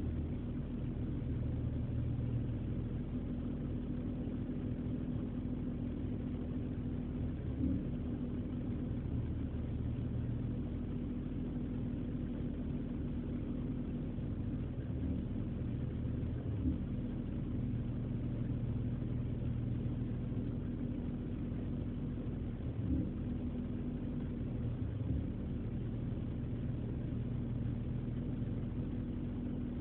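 BMW E46 engine idling, running cold, with a short stumble or jolt every few seconds at uneven intervals: a misfire.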